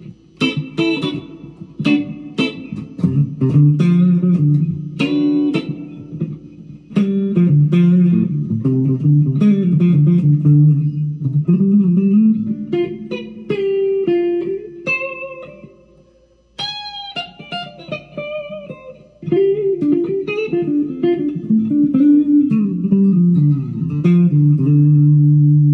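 Electric guitar played through an amp with both pickups selected: picked chords and single-note lines, with a short break about two-thirds of the way through and a held chord ringing at the end. The tone is still pretty dark.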